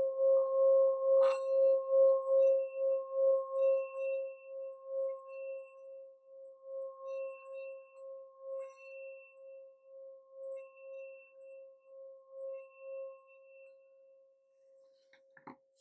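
Hand-held metal singing bowl sung by circling its rim with a mallet: one steady pulsing tone that is loudest for the first few seconds, then slowly dies away. A single sharp tap of the mallet on the rim about a second in.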